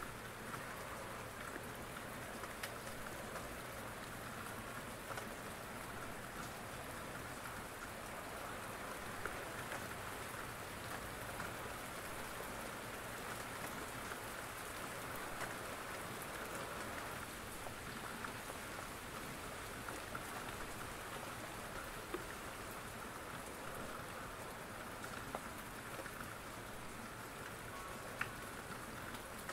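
Steady rain falling, with a few faint ticks scattered through it.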